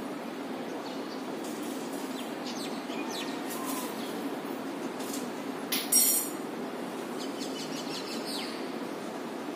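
A steady low background hum with a few faint bird calls, and one short, loud bird squawk about six seconds in.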